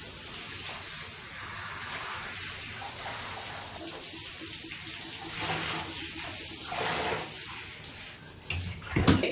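Handheld shower head spraying water in a bathtub, rinsing shampoo off a dog's coat on its strong spray setting. Just before the end there are a few loud knocks and the water cuts off suddenly.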